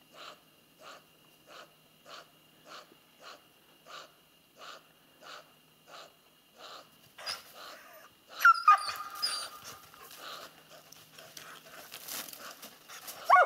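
Laika hunting dog panting in an even rhythm, about one and a half breaths a second. About eight and a half seconds in, a dog gives a loud, high whine that drops in pitch and trails off into softer whining, and another loud whine comes right at the end.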